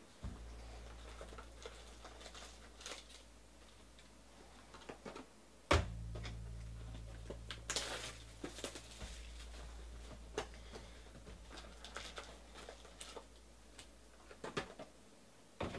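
Sealed trading-card boxes and packs being handled and unwrapped: scattered light taps and clicks of cardboard, with a burst of crinkling plastic wrap about eight seconds in.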